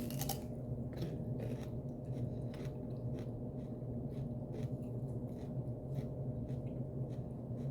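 Close-miked eating sounds: crunching, biting and chewing of fried chicken wings and fries, heard as many short crisp clicks, over a steady low hum.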